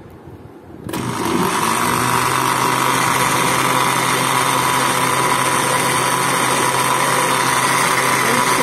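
Westpoint electric blender switched on about a second in, its motor then running loud and steady as it blends mango chunks with milk into a shake.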